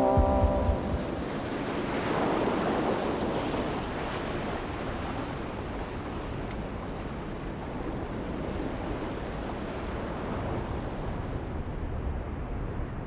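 Heavy ocean surf breaking: the rush of water swells about two seconds in, then settles into a steady wash that softens near the end.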